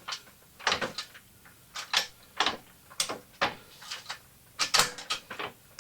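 Norton Commando's kickstart and gearbox worked by hand in first gear, turning the back wheel: a string of irregular mechanical clicks and clacks.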